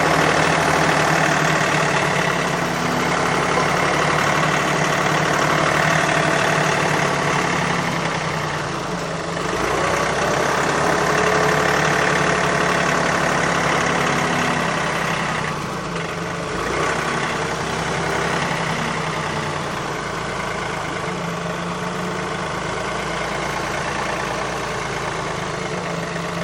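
Engine running steadily at around idle, its pitch shifting a little now and then.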